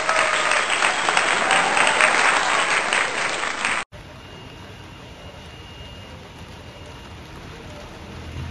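Applause with some crowd voices, cut off suddenly about four seconds in. Then a quieter steady hiss of afternoon rain, with a low rumble of thunder starting to swell near the end.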